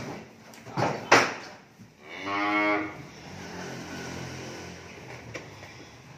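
A cow moos once, a pitched call of under a second about two seconds in, then keeps lowing more quietly and low-pitched. Just before the moo come two sharp knocks, the second one the loudest sound.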